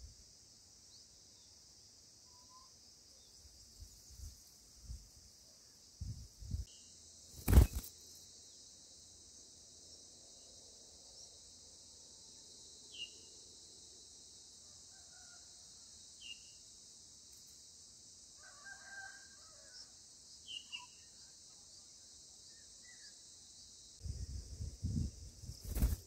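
Steady high-pitched insect drone with short scattered bird chirps and a brief burst of bird calling about two-thirds through. A single sharp knock about a third of the way in, and low bumps near the end.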